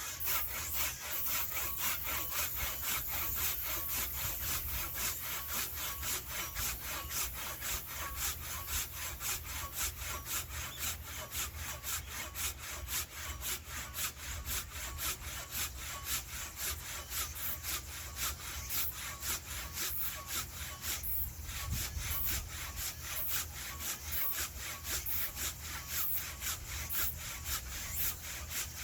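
Hand saw cutting through firewood, a steady rapid rhythm of back-and-forth strokes, with one brief break about three-quarters of the way through.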